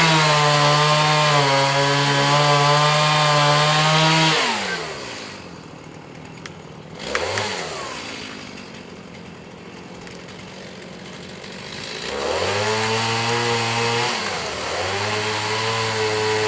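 Chainsaw at full throttle cutting into a cedar trunk, the back cut above the felling wedge. About four seconds in it drops to idle. Near the end it is revved up twice, a couple of seconds each, with a brief knock in between the two parts.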